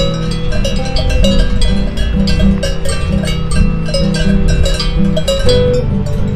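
Background music: quick, bright, ringing notes in an even rhythm over steady low held notes.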